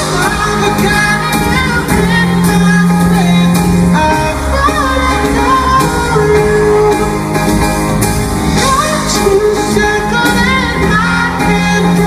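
Live pop ballad performed by a band with a male lead singer holding long sung notes, recorded from within the crowd in a large concert hall.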